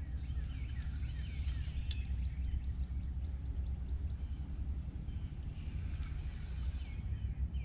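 Outdoor riverbank ambience: a steady low rumble with small birds chirping, and a single sharp click about two seconds in.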